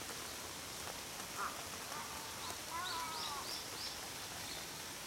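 Steady rain pattering on an umbrella, with birds calling over it: a short call about a second and a half in, then a cluster of calls and quick high notes around the middle.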